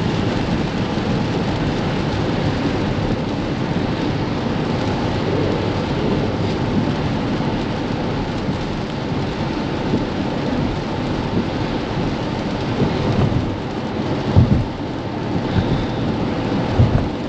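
Steady rush of rain and tyres on wet pavement, heard inside a Tesla Model X's cabin at highway speed, with a few short low thumps near the end.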